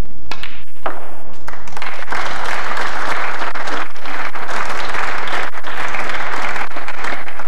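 Snooker audience applauding a century break. A couple of sharp ball clicks from the shot come in the first second, and the clapping builds from about a second and a half in.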